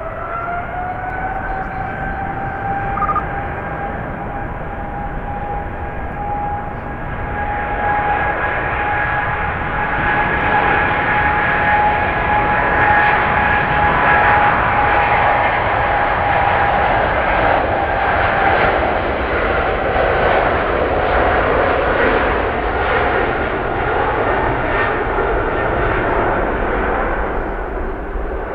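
Boeing 777-300ER's GE90-115B turbofan engines at takeoff thrust. The engine whine rises in pitch over the first second or two as thrust builds, then holds steady over a rumbling roar that grows louder through the middle as the jet rolls down the runway, easing off near the end.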